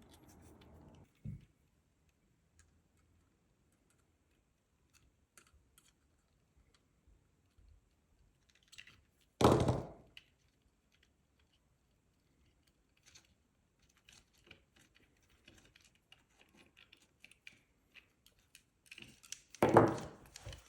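Small parts being handled while a nut is unscrewed from an MMCX headphone socket: faint scattered clicks and taps, with one louder thunk about halfway through.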